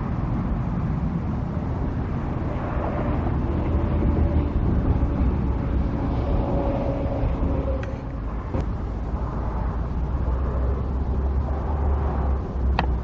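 A vehicle's engine running steadily: a low rumble with no change in pace, and a faint held tone in the middle and a couple of small clicks.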